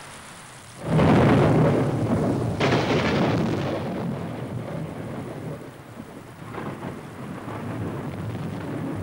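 A clap of thunder a little under a second in, rumbling on with a second surge soon after, then fading into steady falling rain.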